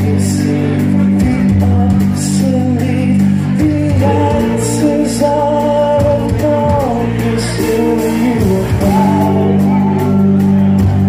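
A progressive metal band playing live: sung vocals holding long notes over sustained guitar and bass chords and drums, with cymbal crashes every second or two.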